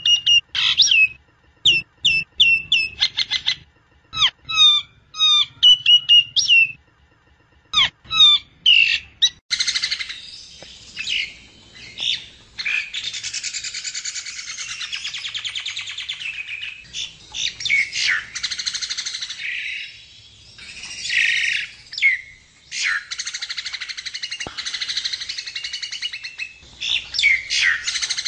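Jalak nias (myna) song: sharp whistled notes in short, repeated phrases for about the first nine seconds, then a dense, nearly unbroken chattering warble to the end.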